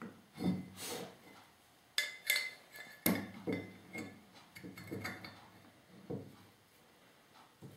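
Irregular metal clinks and knocks as steel machinist's clamps and a drill jig are fitted and screwed tight onto an aluminium casting, some of the clinks ringing briefly.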